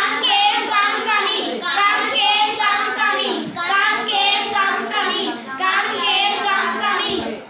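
A class of children chanting English verb forms back in unison, 'come, came, come, coming', a sing-song group recitation repeated in about four phrases.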